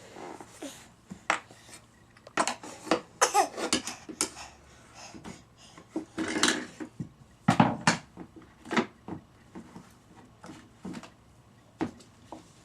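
Irregular knocks and clatter of hard objects being handled, like a spatula being banged and dropped about, with a few brief squeaky sounds about three seconds in.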